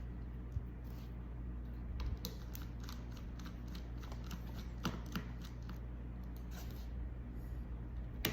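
Small, irregular clicks and taps of a screwdriver and tiny screws being worked out of a laptop's bottom panel and handled, over a steady low hum.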